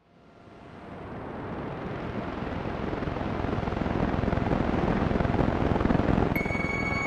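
Trailer soundtrack opening: a deep rumbling noise swell fades in from silence and builds steadily. About six seconds in, sustained drone tones of the music join it.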